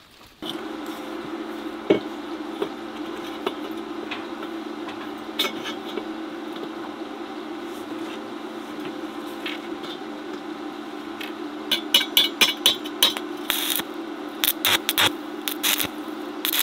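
Portable stick welder humming steadily while steel tubes are laid out, with a few sharp metal knocks. In the last few seconds the arc strikes and crackles in rapid bursts as the corner of the steel frame is tack-welded.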